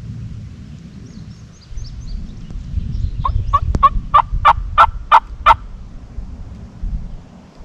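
A wild turkey gobbler gobbling once, loud and close: a rapid rattling run of about eight notes lasting a little over two seconds, starting about three seconds in.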